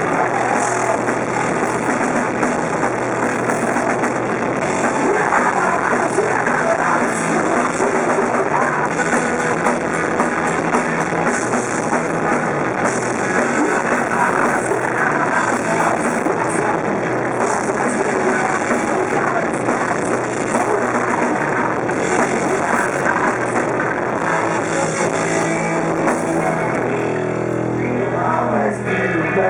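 Punk rock band playing live: electric guitars, bass guitar and drum kit at full volume, with a singer's vocals over them. The dense band sound thins out near the end.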